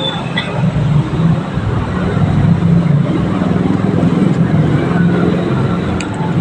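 Steady low engine rumble of road traffic, a little louder in the middle.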